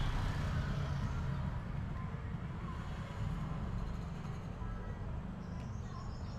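Steady low rumble of background noise, with a brief faint high-pitched twitter near the end.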